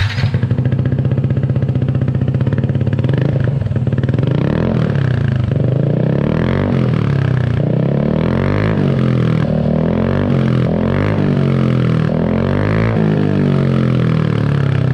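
Yamaha NMAX 155 scooter's single-cylinder four-stroke engine running loud through an Ixil aftermarket silencer with its dB killer (baffle) removed. It holds steady for the first few seconds, then is revved in a series of short throttle blips, the pitch rising and falling again and again.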